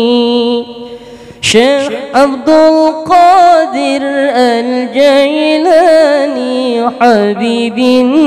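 Zikir saman chanting: a single voice sings a long, ornamented melismatic line with wavering vibrato. It drops away briefly about a second in, then comes back with a quick upward swoop and carries on.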